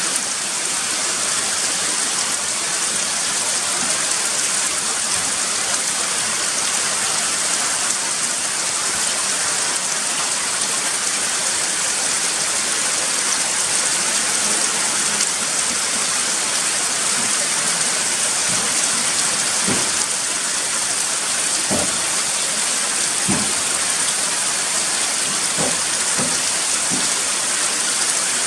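Steady heavy rain falling, with a few separate louder taps in the second half.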